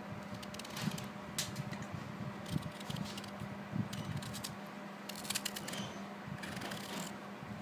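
Raw green mango being peeled by hand: a blade scrapes off thin strips of skin in short, irregular strokes, over a steady low hum.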